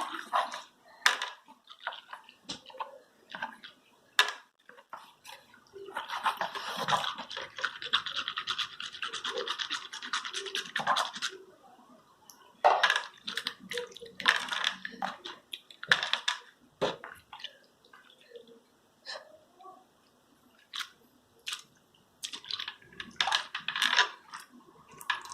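Runny, deactivated jiggly slime being squished and worked by hand: wet squelching and crackling that comes in spells with pauses, longest and densest from about six to eleven seconds in.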